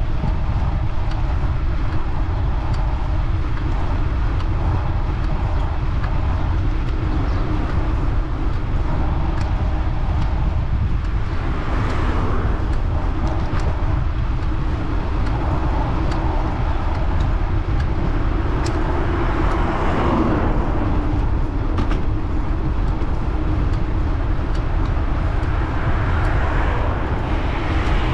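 Steady wind rush and rumble on the microphone of a road bike rolling along a highway, with traffic noise. A vehicle passes three times, each swelling and fading: about twelve seconds in, near the twenty-second mark, and near the end.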